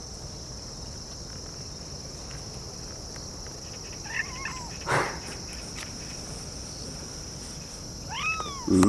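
Crickets chirring steadily at a high pitch in the grass. A few faint short chirps and a click come about halfway through, and a short rising-and-falling call comes near the end.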